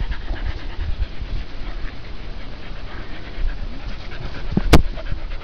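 Groenendael dog panting, with one sharp knock near the end.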